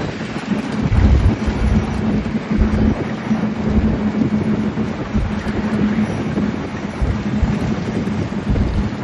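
Wind buffeting the microphone at a moving truck's open cab window, over road noise and a steady low engine drone.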